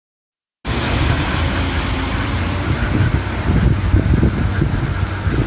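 Silence, then about half a second in, loud storm noise starts abruptly: a steady rush of wind buffeting the microphone with a heavy low rumble.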